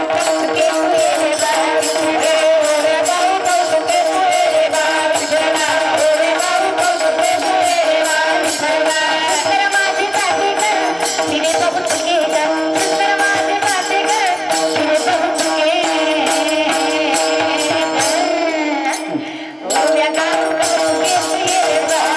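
Marathi kirtan music: singing over a steady drone, with small brass hand cymbals (tal) struck in a quick, regular beat. The music dips briefly near the end and starts again.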